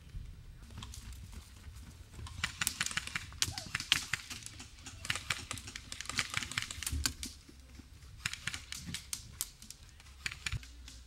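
Airsoft guns firing in short bursts of rapid clicking shots, several bursts a second or two apart.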